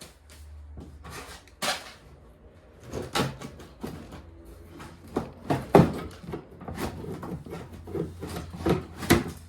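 Irregular knocks, clunks and scrapes of a snowblower's engine cover being worked loose by hand, the loudest knock about six seconds in.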